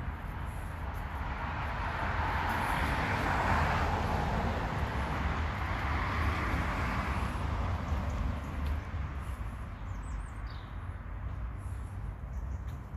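Traffic noise: a passing vehicle swells over a couple of seconds, holds, and fades away about eight seconds in, over a steady low rumble. A few brief high chirps come near the end.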